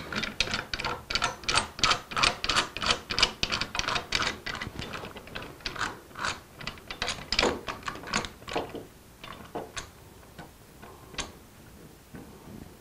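Woodworking clamp being cranked tight to draw a glued door joint closed, giving an even run of sharp ratcheting clicks, about three a second, that thin out and fade near the end.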